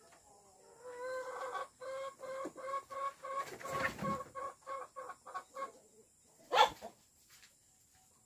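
A chicken clucking in a quick, even run of short notes, about three a second, with one louder short sound near the end.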